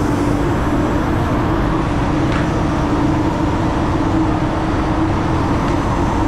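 Spray booth's ventilation fans running: a steady rumble with a constant low hum.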